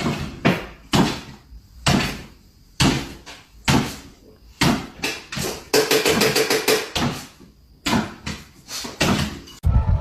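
A series of sharp knocks or thuds, irregularly spaced about half a second to a second apart, with a short quick rattle about six seconds in.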